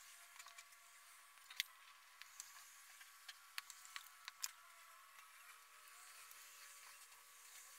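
Near silence broken by a few faint, scattered clicks and taps of a pencil and a plastic ruler against paper held on a window pane, the sharpest about a second and a half in.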